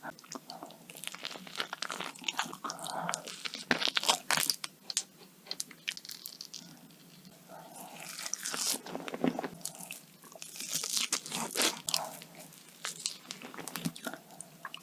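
Close-miked mukbang eating: crunchy food being bitten and chewed, a run of sharp, irregular crunches with a quieter spell about six seconds in.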